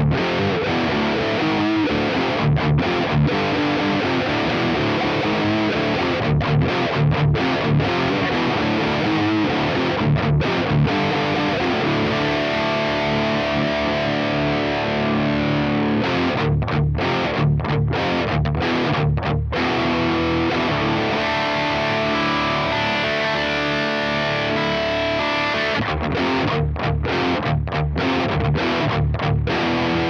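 A Parker Fly Deluxe electric guitar with DiMarzio humbuckers, played through a Diezel VH4 high-gain valve head into a 4x12 Celestion Vintage 30 cabinet, heavily distorted. It plays riffs of short chugging notes cut off by abrupt stops, alternating with stretches of sustained chords and notes.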